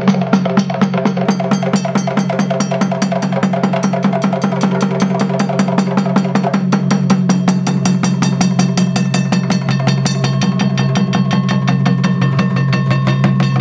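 Kerala temple ritual drumming: fast, even drum strokes, several a second, over a low steady drone. Near the end a higher steady tone joins in.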